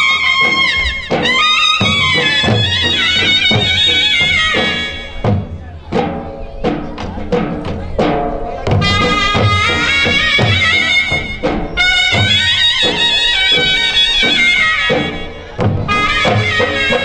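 Loud traditional folk dance music: a wavering, brass-like lead melody over steady drum beats.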